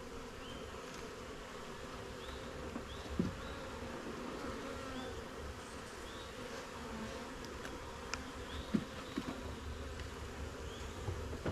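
Honeybees buzzing steadily around an open hive, with a few faint knocks.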